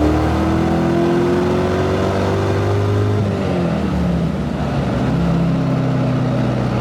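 LS1 V8 engine in a BMW Z3 pulling hard under acceleration, its note rising steadily for about three seconds. Then the revs drop, and the engine settles into a steady, lower note.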